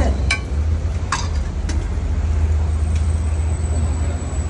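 Metal spatula clicking and scraping against a large flat iron griddle (tawa) while spreading egg mixture, with a few sharp clicks in the first second or so, over a steady low rumble. A thin high whine comes in about three seconds in.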